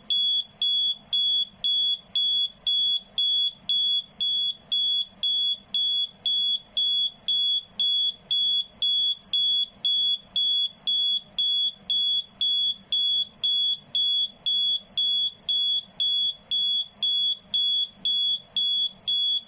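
Arduino alarm clock's buzzer sounding its alarm: a high electronic beep repeated steadily, about one and a half to two beeps a second.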